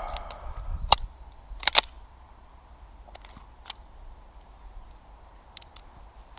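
A few sharp clicks and knocks: one loud click about a second in, a quick pair just after, then fainter ticks. This is the pistol and its gear being handled between shooting strings.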